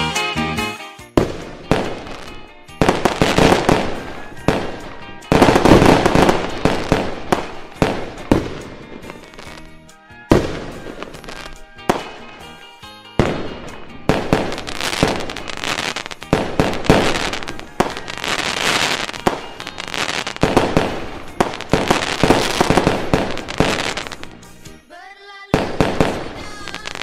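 Fireworks going off in close succession: repeated sharp bangs and bursts, each dying away, with brief lulls about ten and thirteen seconds in.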